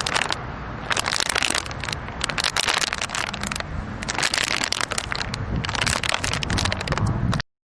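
Dense crackling and crunching, a rapid mass of small clicks that swells and eases several times, then cuts off suddenly near the end.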